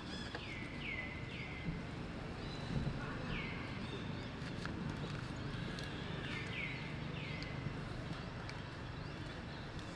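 Short high-pitched animal calls, each sliding down in pitch, repeated several times and mostly in quick pairs, over a steady low background noise.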